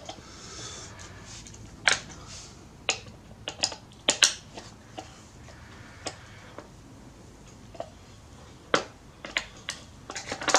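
Scattered light metal clicks and clinks at irregular spacing, from a ring spanner being fitted and worked on the shaft nut of a 26cc two-stroke weed eater engine.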